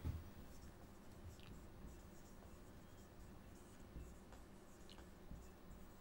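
Faint strokes and short squeaks of a felt-tip marker writing on a whiteboard, with a soft thump right at the start.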